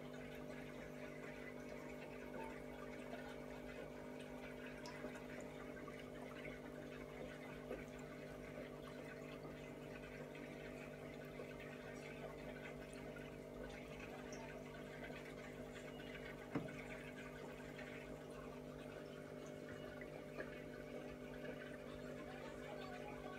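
Aquarium pump humming steadily with water trickling, and one short knock about two-thirds of the way through.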